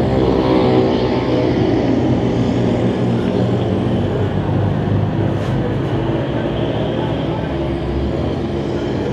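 Small racing engines of mini sprint cars running on a dirt oval: a loud, steady engine drone that eases off slightly toward the end.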